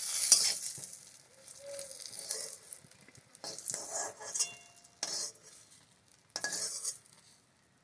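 Eggplant slices sizzling in hot oil in a kadai (wok), the sizzle dying away over the first second or so. Then a spatula scrapes the pan several times in short strokes as the fried slices are lifted out.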